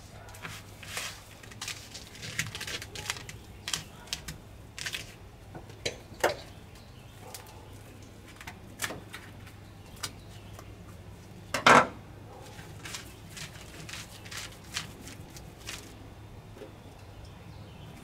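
Irregular light clicks and taps, one or two a second, with one sharper, louder knock about twelve seconds in, over a low steady hum.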